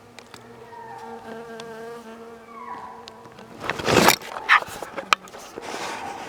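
A flying insect buzzing close by in a steady, slightly wavering hum, followed about four seconds in by a loud, brief rush of noise with a few sharp clicks.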